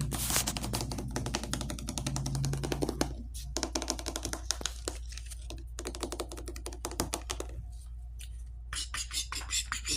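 Rapid, irregular clicking and tapping close to the microphone, denser in the first few seconds, over a steady low hum.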